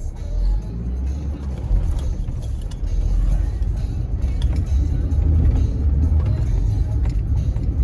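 Car driving along a road, a steady low rumble of engine and tyres that swells slightly about three seconds in.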